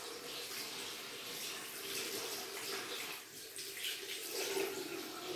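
Tap water running into a bathroom sink while a toothbrush is rinsed under the stream. The level drops briefly a little over three seconds in.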